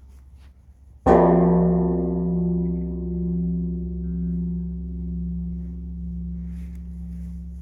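A large temple bell struck once, about a second in, then humming on with a deep ringing tone that fades slowly, swelling and ebbing about once a second.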